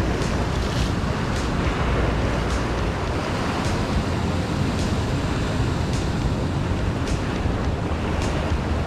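Rough surf washing and breaking against a rocky shoreline, with wind buffeting the microphone as a low rumble. A faint tick comes about once a second throughout.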